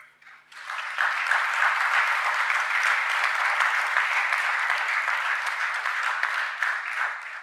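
Church congregation applauding at the close of a sermon: the clapping builds up within the first second, holds steady, and is cut off abruptly at the end.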